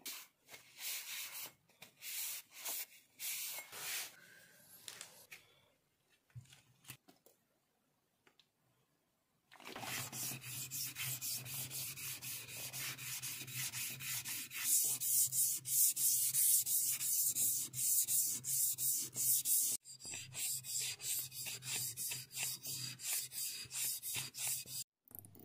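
Steel putty-knife blade rubbed back and forth flat on a wet whetstone, sharpening and flattening the steel. A few scattered strokes and a pause come first; about ten seconds in, a steady run of quick, regular strokes begins.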